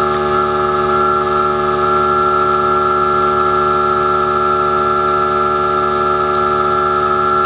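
A loud, steady chord of several held tones that does not change in pitch or loudness.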